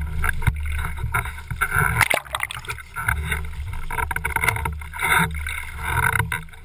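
Wind buffeting the microphone of a camera mounted on a windsurf rig, a heavy low rumble that rises and falls, with water splashing and sloshing right beside it.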